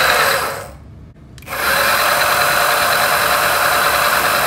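Electric skateboard dual motors spinning the wheels freely on the remote's throttle: a short whir that cuts off just under a second in, then from about a second and a half a steady whir at constant speed.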